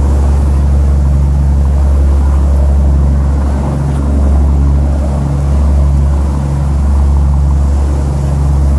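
Fishing boat's engines droning steadily while underway, with a slow wavering in the engine note every second or so.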